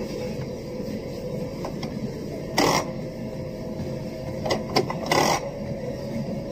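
Steady mechanical hum with a faint constant whine. Short louder noises cut through it once about two and a half seconds in and three times around five seconds.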